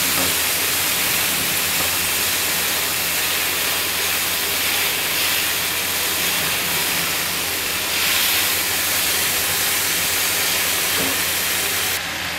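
Boneless chicken strips sizzling in oil in a non-stick frying pan as they are stirred with a spatula: a steady frying hiss that eases slightly near the end.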